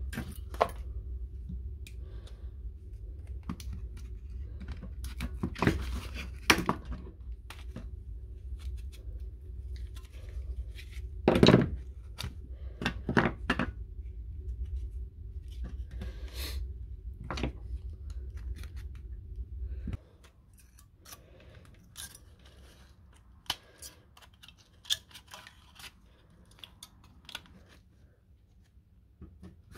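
Irregular plastic clicks, snaps and knocks as a power-tool battery pack is pulled apart by hand and its 18650 lithium-ion cells are pried out of the plastic cell holder. There are a few louder cracks around the middle. A low background hum runs underneath and cuts off abruptly about two-thirds of the way through.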